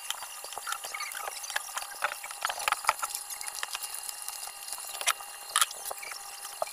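Quick, irregular plastic clicks, taps and rustles from the electric fan's wires and plastic stand being handled, mixed with small squeaky scrapes.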